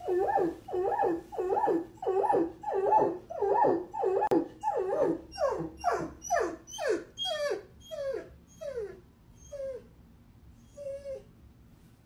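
Golden retriever howling in a rhythmic, siren-like wail, about two wavering howls a second. Midway the howls become falling glides and fade, ending in a few short whimpers.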